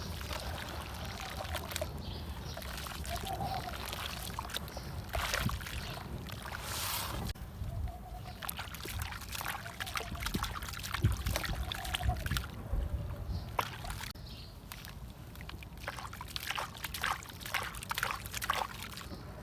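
Chunks of red dirt and concrete crumbling in water: trickling and sloshing over a low background rumble, with many small crackles and clicks.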